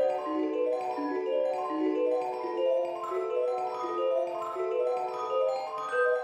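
Background music: a light mallet-percussion melody, a quick run of short single notes stepping up and down at an even pace.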